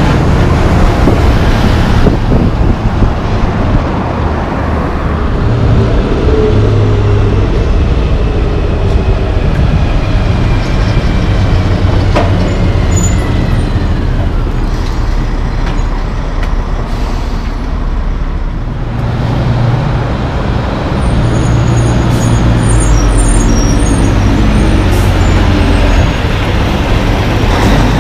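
Loaded diesel logging trucks passing close by one after another, engines running with a heavy low rumble and tyres on the road, easing briefly between trucks.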